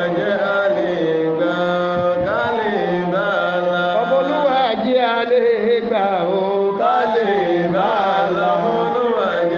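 A voice chanting an ornamented melodic line, with long held notes that bend and waver, over a steady low held tone.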